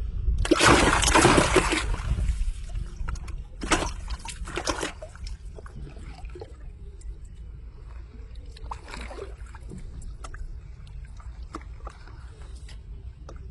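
Water splashing in two loud bursts, the first about a second and a half long and the second about a second, followed by quieter scattered ticks and knocks over a steady low rumble.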